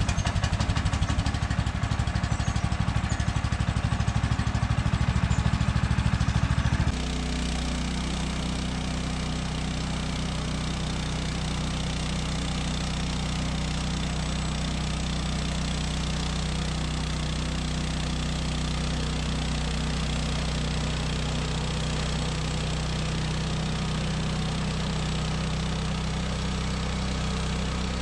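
Gasoline engine of a Woodland Mills portable bandsaw sawmill running just after start-up, loud with a rough, pulsing beat for about seven seconds, then suddenly settling to a steadier, slightly quieter run.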